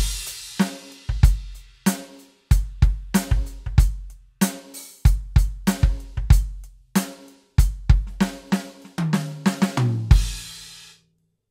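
Roland TD-17 module's acoustic drum kit sounds played on a VAD306 electronic drum kit: a steady groove of bass drum, snare, hi-hat and cymbals. It closes with a tom fill and a final cymbal crash that fades out near the end.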